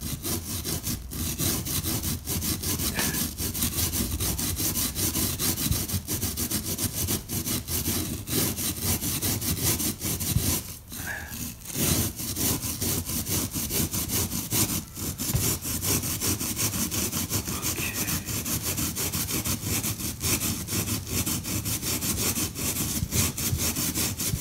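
Steel wool pad scrubbed rapidly back and forth along the edge of a stained glass panel: a steady rasping rub, with a brief pause about halfway through. It is cleaning the dirty, ragged edge before new foil goes on.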